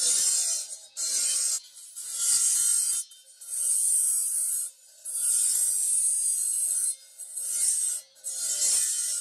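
Green marble being ground against a spinning abrasive disc, a harsh high hiss in about seven passes of one to two seconds, breaking off briefly each time the stone is lifted and pressed back.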